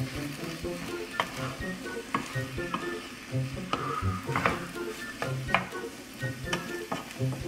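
Kimchi fried rice sizzling in a nonstick wok while a spatula stirs and scrapes through it, with a sharp knock of the spatula against the pan about once a second.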